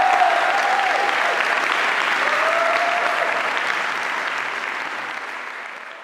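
Audience applauding, with a few voices calling out over the clapping; the applause fades out near the end.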